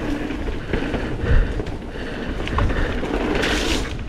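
Propain Rage 3 CF downhill mountain bike riding over rough, wet trail: a steady low rumble from the tyres and frame, with rattling and clicking from the bike's mechanical parts, and a brief rush of noise near the end.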